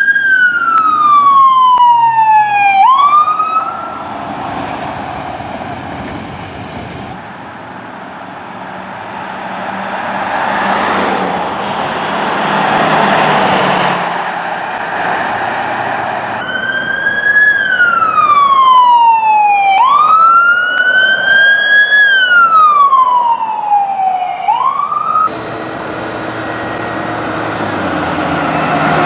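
Fire apparatus sirens sounding as emergency vehicles pass, each cycle a quick rise then a slow fall in pitch, about every three seconds. Between the siren passages a truck goes by, its engine and tyre noise swelling and fading.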